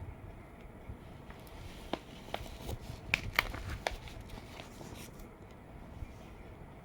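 Hands handling a vinyl record and its packaging: light crinkles and a quick cluster of sharp clicks and taps a couple of seconds in, over a low background rumble.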